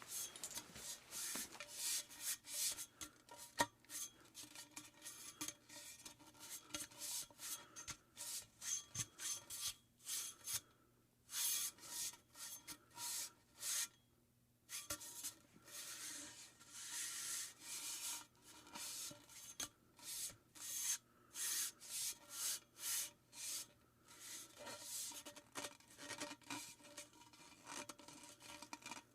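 Repeated short, rough rubbing and scraping strokes in quick, irregular succession, with brief pauses about ten and fourteen seconds in.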